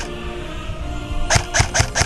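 Background music with a steady, fast drum beat; the beat drops out for about a second, leaving only held tones, then comes back.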